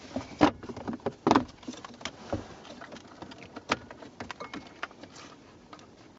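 A hand reamer working a tight switch mounting hole, giving irregular scrapes and sharp clicks, the strongest about half a second in, just over a second in and near four seconds in.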